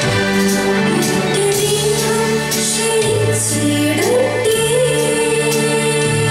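Two female vocalists singing a Malayalam Christian song into microphones over instrumental accompaniment with a bass line and a steady beat about twice a second.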